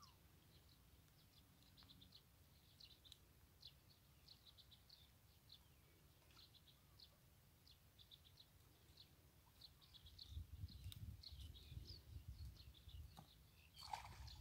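Faint, quick high-pitched chirps of small birds calling over and over in quiet open country. A low rumble comes in about ten seconds in.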